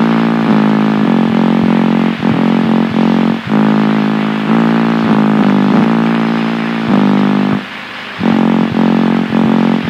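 Experimental noise music from a cassette: a loud, steady low-pitched drone thick with overtones. It is cut by a few short breaks, with a longer break about eight seconds in.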